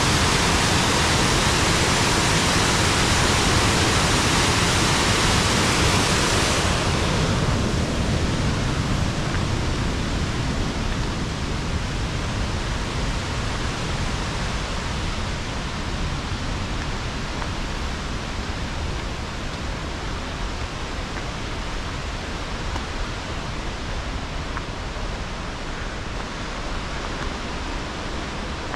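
Rushing water of a waterfall, a steady wash of noise that drops in level about seven seconds in and then slowly fades.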